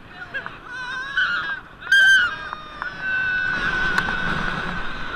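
A boy's high-pitched wavering cries and a sharp yelp, then a long held scream from about three seconds in as the roller coaster car picks up speed, over a rush of wind and ride noise.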